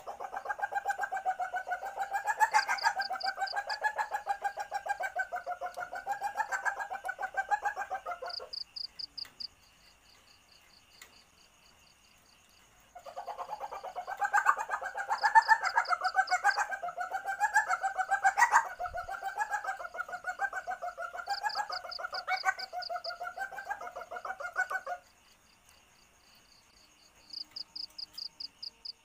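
Common palm civet calling in a fast, pulsing series: one long bout ends about eight seconds in, and after a pause a second bout of about twelve seconds follows. It is presented as the call of a female in heat, used as a lure to draw males. Short, fast, high trills recur faintly every few seconds.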